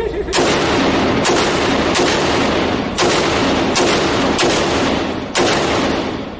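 AR-15-style semi-automatic rifle firing about seven shots at roughly one a second. Each sharp report rings on in the echoing booth of an indoor range.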